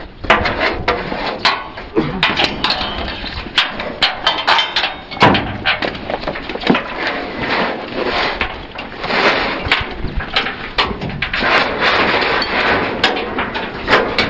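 Irregular knocks, clicks and clatter over a rustling noise, as of objects being handled and set down.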